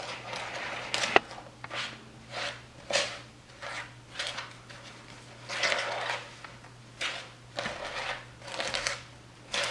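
A whisk stirring dry almond flour and sweetener in a bowl: a run of uneven scraping, rustling strokes, with one sharp knock of the whisk against the bowl about a second in.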